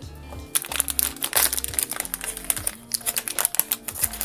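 Foil blind-box bag crinkling and crackling as it is handled and opened, over background music with a steady bass line.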